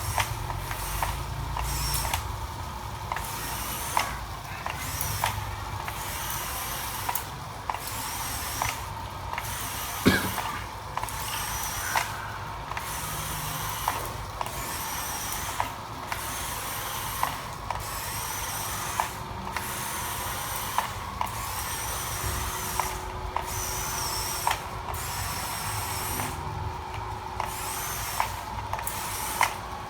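Small electric motor running steadily with a faint wavering whine, with sharp clicks and knocks about once a second; one knock about ten seconds in is the loudest.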